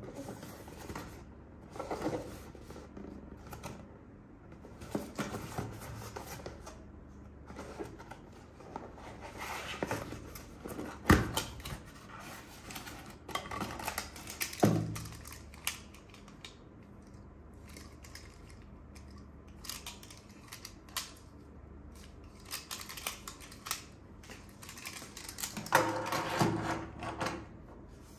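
Hands unboxing a toy: intermittent handling of packaging and plastic parts, with rustling and small clicks. There is a sharp knock about eleven seconds in and another a few seconds later.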